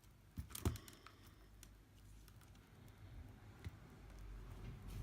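Small clicks and light taps of tools and tiny screws against an iPad's frame during reassembly, with a sharper click about two-thirds of a second in and fainter ticks after it.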